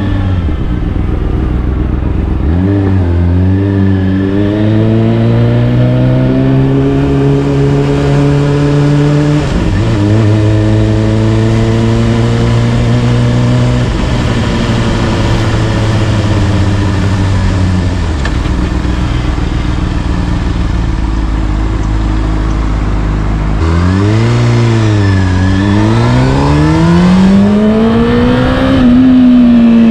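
Honda CBR600RR inline-four with an Akrapovic exhaust under way. The engine note climbs with the revs and drops suddenly at gear changes, holds steady for a stretch in the middle, then dips and climbs again near the end before falling away.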